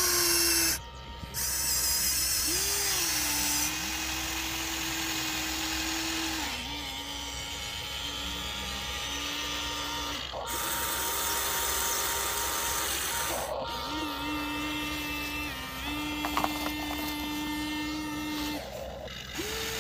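Electric motors of a Huina remote-control toy excavator whining as it slews and works its arm and bucket, the pitch stepping up and down as it changes movement and cutting out briefly about four times.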